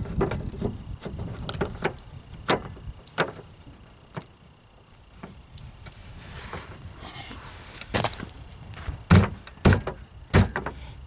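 Scattered clicks and knocks of a car's door handle and latch parts being worked into place in the door, with a few heavier thumps near the end.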